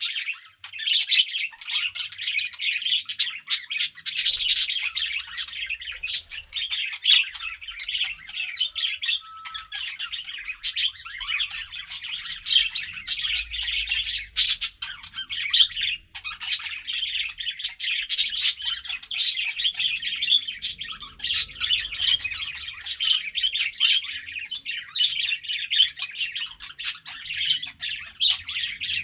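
A group of pet budgerigars chattering continuously, with quick overlapping chirps, warbles and sharp squawky notes.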